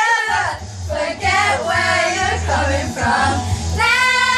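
A group of girls singing loudly together, with music playing underneath them.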